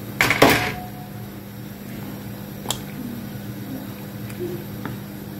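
Steady low hum over a pot of meat stew simmering and being stirred with a spoon; a brief loud clatter about half a second in and a single click a little before three seconds in.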